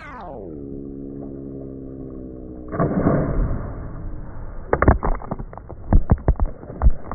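Slowed-down audio of a jump into a lake: a deep, drawn-out voice that drops in pitch and holds low, then about three seconds in a heavy splash as a man hits the water beside the camera. Water spray then strikes the camera in a run of sharp knocks.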